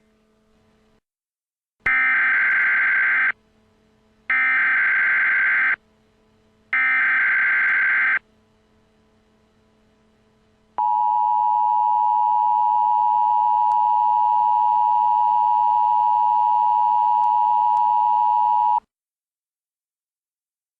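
Emergency Alert System tones. Three screeching bursts of SAME digital header data, each about a second and a half long, are followed by the steady two-tone attention signal. The attention signal lasts about eight seconds and cuts off sharply, announcing an incoming alert message.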